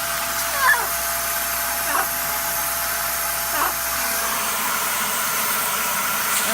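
Shark vacuum cleaner running steadily with a Dust Daddy attachment whose tubes are clogged with dust and birdseed. Three short sliding squeaks, each falling in pitch, come about a second and a half apart.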